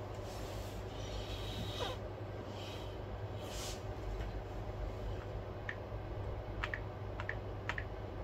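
Steady low hum with a few soft rustles, then a run of short, sharp clicks in the second half as fingertips tap the passcode keypad on the iPad's freshly fitted replacement digitizer, testing that the touch works.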